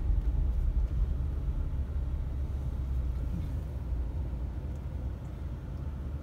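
Steady low rumble of a car driving on the road, heard from inside the cabin.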